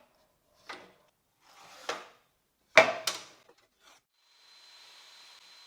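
Pine boards being handled: a few separate wooden knocks and a short sliding rub, the loudest a close pair of knocks about three seconds in. A faint steady hum with a thin high whine starts about four seconds in.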